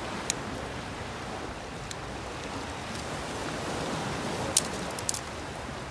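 Steady wash of surf breaking on a rocky shore, with a few sharp pops and crackles from a small fire of dry twigs, the loudest about three-quarters of the way through.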